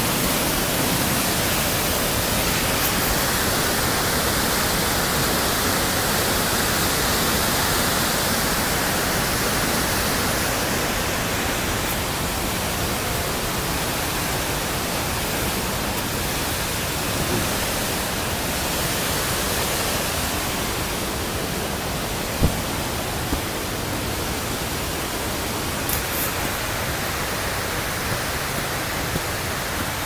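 Steady rush of a waterfall and its white-water rapids, easing slightly partway through. A couple of brief knocks sound a little over twenty seconds in.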